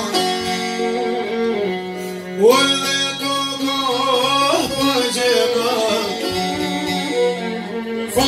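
Albanian folk ballad: a man sings a sorrowful melody with sliding, rising phrases, accompanied by plucked long-necked lutes (çifteli) and a bowed violin.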